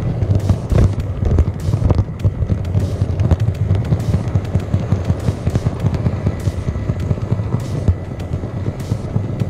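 H0 model train running along the track under the camera: a loud rumble with rapid, irregular clicking of the wheels over rail joints and points, and a faint steady whine.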